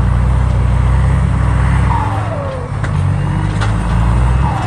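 Heavy diesel truck engine revving under load as the cane truck strains to pull itself and its trailer out of soft, sunken ground. The engine note dips and shifts about two seconds in and again near the end.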